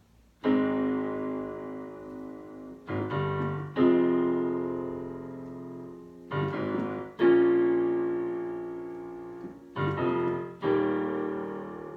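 Digital piano playing slow sustained chords, each left to ring and fade before the next. It starts about half a second in, and the later chords come in pairs, a short one followed by a longer held one, roughly every three seconds.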